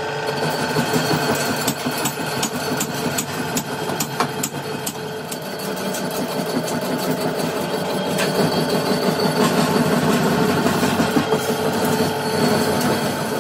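Metalworking machinery running steadily, with a run of sharp clicks or knocks in the first few seconds.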